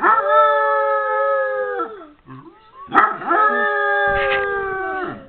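Basset hound howling: two long howls of about two seconds each, each held at a steady pitch and then dropping away at the end. It is set off by a dog barking in a video.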